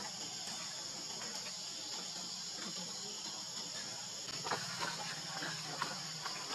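Steady high-pitched buzz of insects in the background. From about four and a half seconds in, a few short, sharp, faint sounds break over it.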